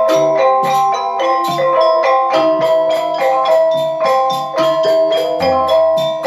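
Balinese semar pegulingan gamelan playing: bronze-keyed metallophones struck in fast, dense patterns with ringing tones, over kendang drum strokes, with a deeper low stroke about five and a half seconds in.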